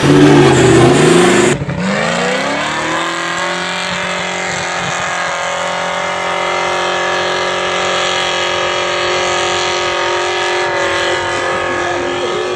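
Off-road 4x4 engines working hard in mud and slush. For the first second and a half one is revving loudly. Then, after a sudden change, an engine climbs in revs and holds them steady at a high pitch as the vehicle pulls away up the track.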